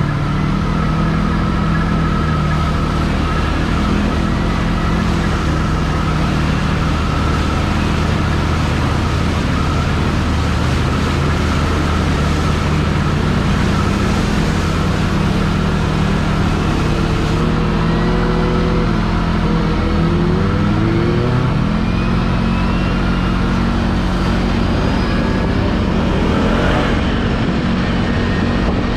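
Can-Am Renegade 1000 ATV's V-twin engine running under way while the quad splashes up a shallow creek. The revs rise and fall several times about halfway through, over a steady rush of water spray.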